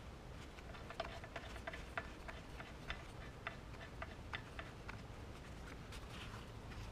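Light, irregular metallic clicks, a few a second, as a wheel bolt is screwed into a car's wheel hub.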